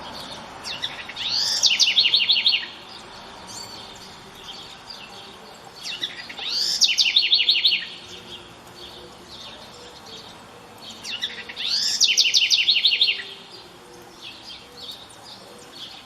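House wren (curruíra) singing: three song phrases about five seconds apart, each opening with quick sweeping notes and ending in a fast trill of repeated notes.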